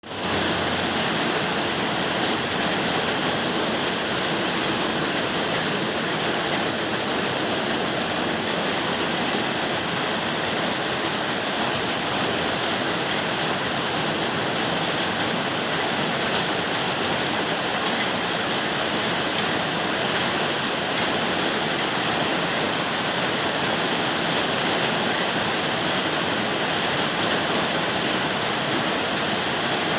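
Rain falling steadily, an even, unbroken rushing hiss that fades in quickly at the start.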